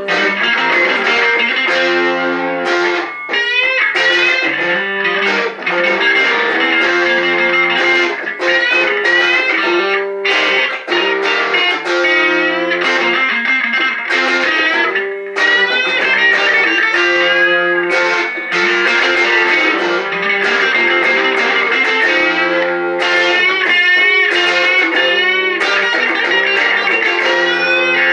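Electric guitar playing continuously: a lead line of sustained notes with string bends and vibrato over steady lower notes.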